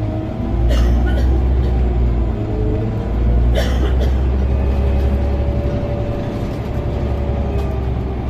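Scania OmniCity bus heard from inside the passenger saloon: a deep engine rumble with a whine that rises in pitch as the bus gathers speed. A few short rattles sound about a second in and again about three and a half seconds in.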